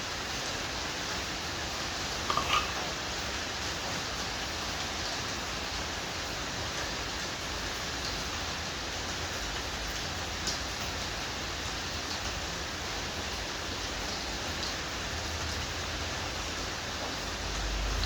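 Steady, even hiss, with a couple of faint light clicks about two and a half and ten seconds in.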